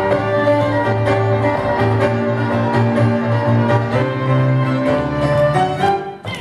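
Fiddle and grand piano playing an instrumental tune together, the piano's low bass notes under the bowed fiddle melody; the music breaks off briefly near the end.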